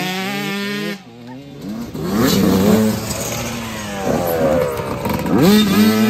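Youth dirt bike engines revving up and down as riders accelerate along a dirt trail. The pitch rises sharply about two seconds in and again near the end.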